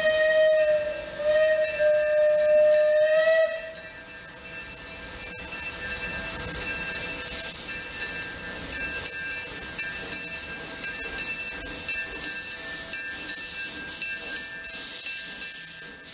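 Steam locomotive whistle blowing a steady note, cutting off about three and a half seconds in, followed by a steady hiss of escaping steam.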